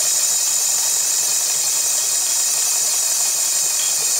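Early-1960s Japanese-made Good Housekeeper sewing machine running steadily at speed with a motor whine, stitching free-motion with the feed dogs dropped and no presser-foot pressure.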